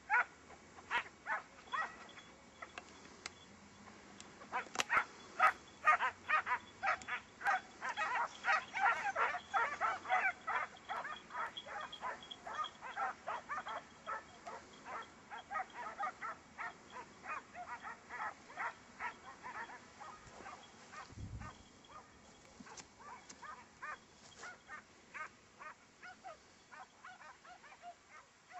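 A pack of hunting hounds baying on a hare's trail, in quick, overlapping barks that come thick through the middle and thin out toward the end.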